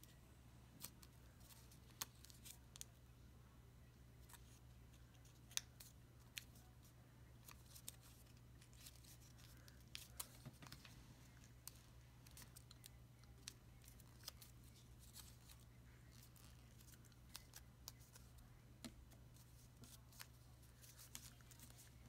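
Faint crinkles and sharp little clicks of foil-backed origami paper being creased and pressed by fingers, coming irregularly, over a steady low hum.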